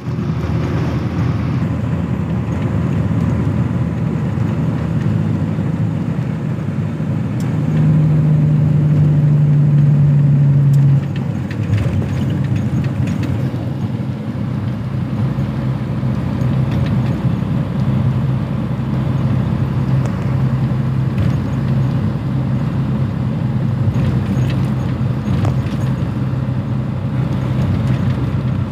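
Engine drone and road noise heard from inside a moving vehicle on the highway: a continuous low hum, louder and steadier for a few seconds near the middle.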